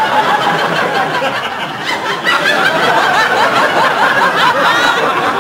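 Sitcom studio audience laughing loudly and steadily, a crowd of many voices at once.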